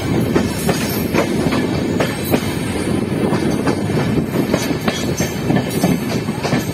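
Passenger train rolling along at speed, heard from the coach: a steady rumble of wheels on the track with irregular sharp clicks as the wheels run over the rails.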